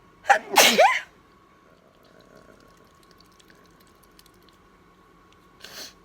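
A woman sneezes once, loudly, with a voiced, sliding-pitch burst about half a second in. Near the end comes a short, much quieter breathy sound.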